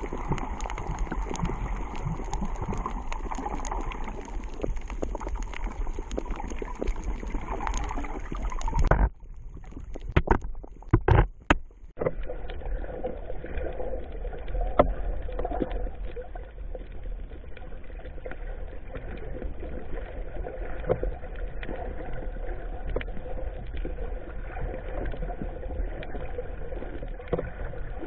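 Underwater sound picked up by a camera in a waterproof housing: a steady muffled water rush with scattered clicks and taps. About nine seconds in it breaks off into a few loud knocks, then comes back duller, with the high end cut off.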